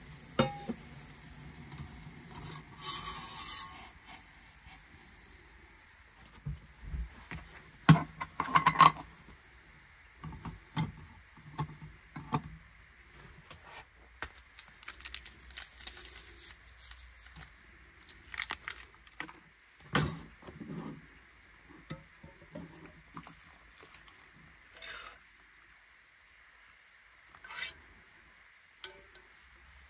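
Stainless steel mess kit pieces being handled: scattered clinks, knocks and scrapes of metal, with the loudest clatter about eight seconds in. A steady low hum runs under the first few seconds and then stops.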